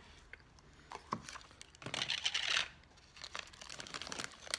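Paper bag crinkling and rustling as it is handled and opened to get at a soft pretzel, loudest for a moment about two seconds in, with small crackles after.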